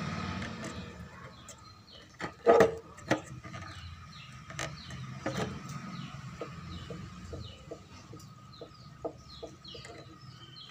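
A few sharp clicks and knocks of a tool and wires being handled against an amplifier circuit board, the loudest about two and a half seconds in, with birds chirping repeatedly in the background.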